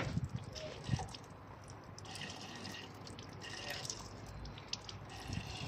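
Water trickling and dripping from the air-release bleed tube of an air source heat pump, coming in faint, uneven surges as the last air is purged from the water circuit.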